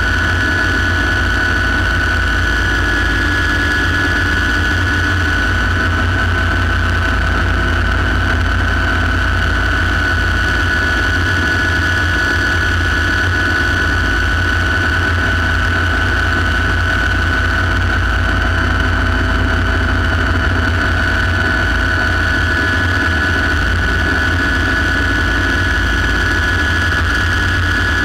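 Light turbine helicopter in cruise flight, heard from inside the cockpit: a steady high turbine whine over a heavy low rumble, unchanging throughout.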